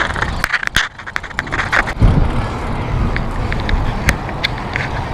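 Bicycle being ridden, with wind rushing on the microphone and scattered clicks and rattles. The rushing starts about two seconds in and holds steady.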